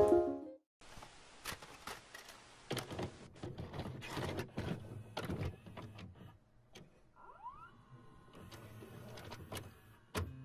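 Video cassette recorder sound effect: a string of mechanical clicks and clunks over a thin tape hiss, with a short rising whir about seven seconds in, as of a tape loading to play.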